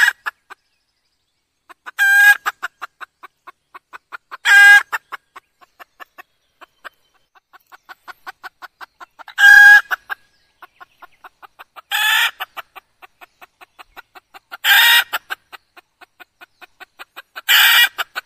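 Red junglefowl hen calling: six loud clucking calls, one every two to three seconds, with a run of soft, quick clucks at about four a second between them.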